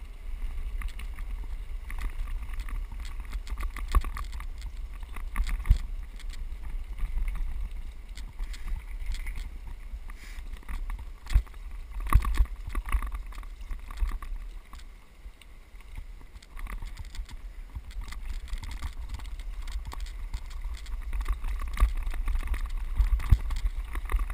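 Riding noise on a gravel track: a steady low rumble of wind on an action-camera microphone and bicycle tyres on loose gravel, with a few sharp knocks from bumps.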